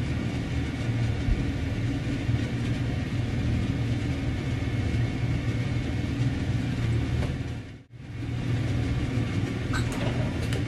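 Steady low mechanical rumbling hum. It cuts out for a moment about three-quarters of the way through, then resumes.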